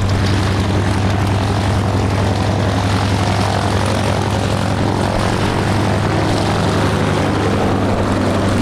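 SAAB B17A's Pratt & Whitney Twin Wasp 14-cylinder radial engine and propeller droning steadily as the aircraft flies its display, a deep even note with no marked rise or fall.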